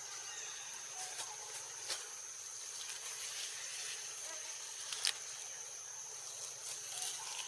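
A steady, high-pitched insect drone, with a few sharp clicks, the loudest about five seconds in.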